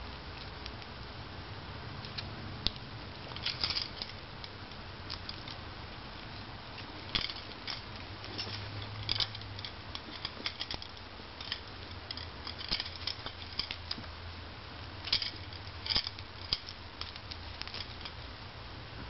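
Scattered soft rustles and taps as a cat bats at, grabs and bites a feathered wand toy, her paws scuffing on carpet, over a low steady hum.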